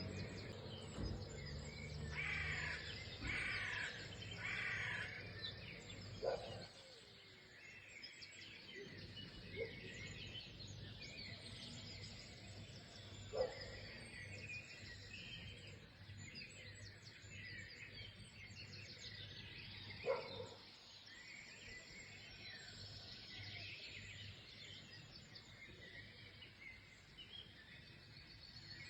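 A chorus of many songbirds chirping and singing at once, with three louder calls a few seconds in and a short lower call roughly every seven seconds. A low hum underneath stops about six seconds in.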